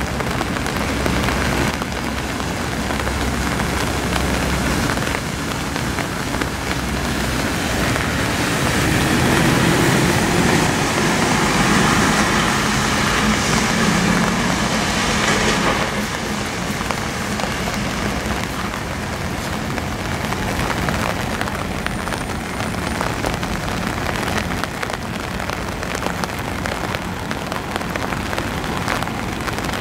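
Steady hiss of rain, with a louder low rumble swelling up between about eight and sixteen seconds in.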